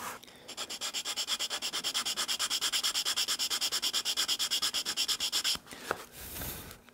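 Small flat file rasping on a wooden guitar X brace in quick, even strokes, cleaning out the half-lap notch where the two braces cross. The filing stops about a second before the end, followed by a small tick.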